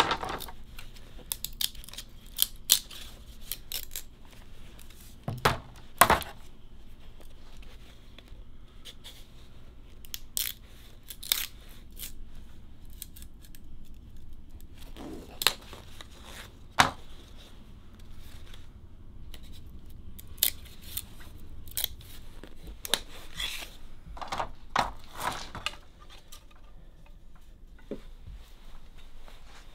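Irregular, scattered clicks, taps and short scrapes of bamboo sticks and hand tools being handled on a wooden workbench. The sharpest knocks come at about six and seventeen seconds.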